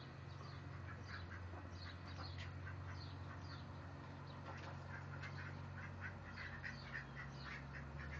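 Mallard ducks quacking in short, repeated calls, coming thicker and faster in the second half, over a steady low hum.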